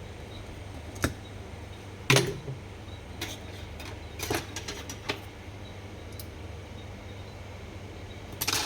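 Small metal parts of a Daiwa Steez SV TW baitcasting reel clicking and clinking as they are handled and set down during disassembly: a sharp click about a second in, the loudest knock about two seconds in, a quick run of light clicks between three and five seconds, and another clink near the end, over a steady low hum.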